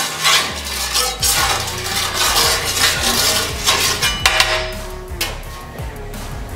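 Metal spatula scraping and spreading hot oil across a flat-top griddle, with sizzling, over background music. The scraping stops about four seconds in, with a couple of clinks as the spatula is set down.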